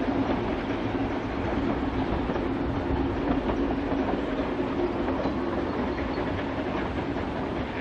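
Ffestiniog Railway narrow-gauge double Fairlie steam locomotive hauling a train of coaches, a steady running noise with clickety-clack of the wheels over the rail joints.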